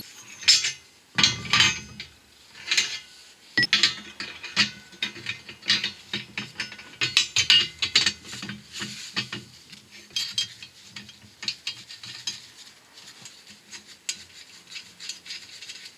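Irregular metal clinks, clanks and rattles of steel parts being handled and set on a hydraulic shop press, some with a short ring.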